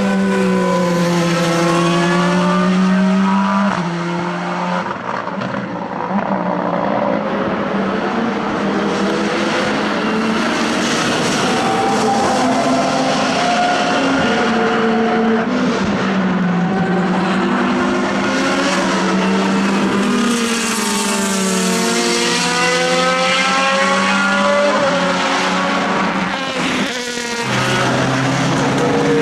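Race car engines at racing speed as several cars go by in turn, their pitch rising and falling through gear changes and pass-bys.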